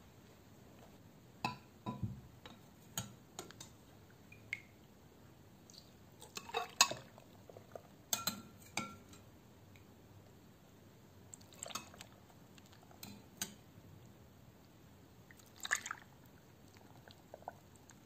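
Whole cooked beets and pumpkin pieces being set into a glass blender jar: scattered soft knocks and clinks against the glass, about a dozen spread irregularly, the loudest about seven seconds in.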